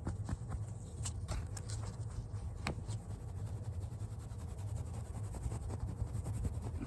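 Fingernails scratching lightly on a small Smurf toy, a string of faint, irregular scratchy ticks over a steady low hum.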